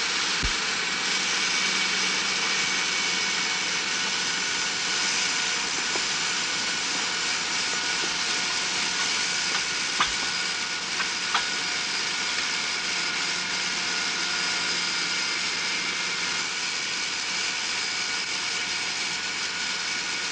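Workshop machinery running with a steady drone, with two short clicks about halfway through.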